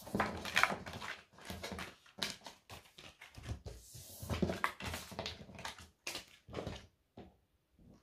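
Stack of oracle and tarot cards being swept together and gathered up off a table by hand: a run of irregular sliding, rustling and tapping noises of card on card and card on tabletop.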